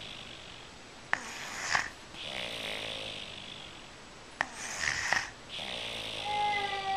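Young child snoring in her sleep: slow, regular breaths, each a long raspy in-breath followed by a shorter, sharper out-breath, about one every three seconds. A short click comes just before each out-breath.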